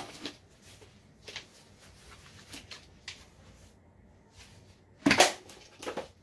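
Handling noises from a camouflage-patterned foam roller being picked up and turned over: light rubbing and scattered taps, with louder knocks about five and six seconds in.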